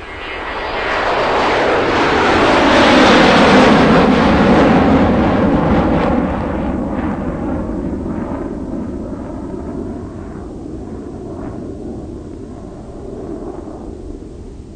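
Loud engine noise that swells over the first few seconds, peaks, then slowly eases off.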